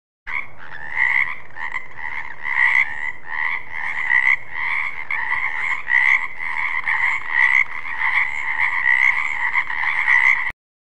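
Frogs croaking in a steady chorus, with louder croaks about twice a second. It starts suddenly and cuts off abruptly near the end.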